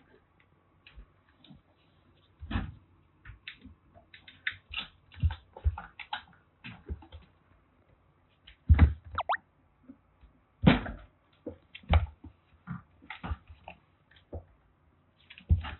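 Irregular knocks, taps and rustles of movement and handling, loudest about nine and eleven seconds in, with a short wavering cry near nine seconds.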